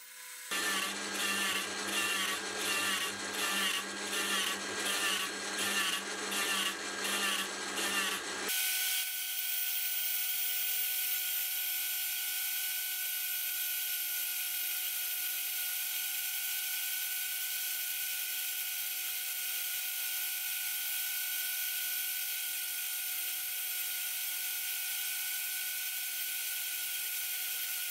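A tool post grinder, a small motor-driven spindle with an abrasive stone, grinds the face of a hardened 4140 steel block spinning in a lathe. For the first eight seconds or so the grinding pulses about one and a half times a second. It then changes abruptly to a steady high hiss with a steady whine.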